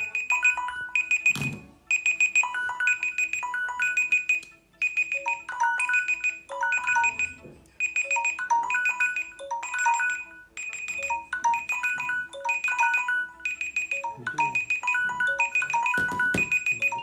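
Mobile phone ringtone: a bright electronic chime melody repeating in short phrases, with a thump about a second and a half in and another near the end.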